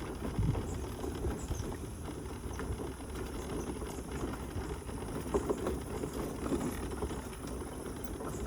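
Mobility scooter rolling along a lane: a steady low rumble from the tyres and drive, with irregular crackling and small knocks throughout.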